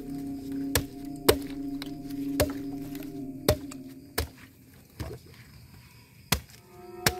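A machete chopping into a coconut: about eight sharp chops at uneven intervals.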